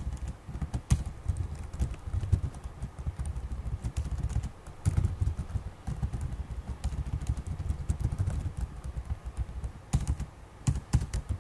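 Typing on a computer keyboard: a fast, irregular run of keystrokes with dull low knocks under them.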